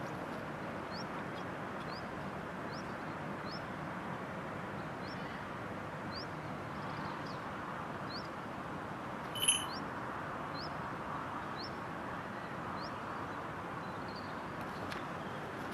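A small bird calls a short, thin rising chirp over and over, roughly once a second, over a steady background hiss. About nine and a half seconds in there is one brief, louder ringing note.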